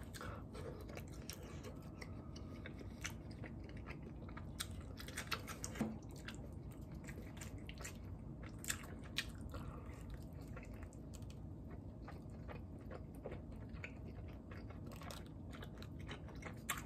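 A person chewing and biting mouthfuls of cheese-topped braised chicken (jjimdak), with many small scattered clicks and smacks, a few louder ones about five to six seconds in and again near nine seconds.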